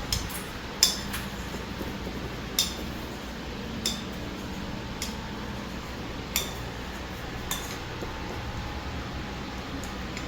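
Light clinks and taps of small hard objects being handled, about seven separate sharp clicks spread unevenly over several seconds, each with a brief ring.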